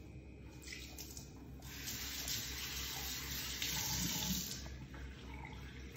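Kitchen tap running into the sink as hands are rinsed under the stream. The water starts a little under two seconds in and stops about five seconds in, after a few light clicks near the start.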